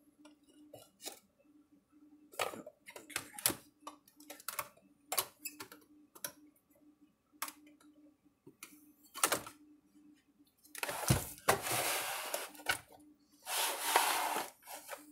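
Irregular clicks, light knocks and scrapes of a printed circuit board being handled and fitted onto the open plastic case of an electric fence charger. There are two longer rough scraping rushes near the end as the board is worked into place.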